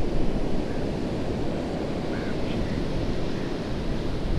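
Sea surf washing on a beach mixed with wind buffeting the microphone: a steady rushing noise with a heavy low rumble.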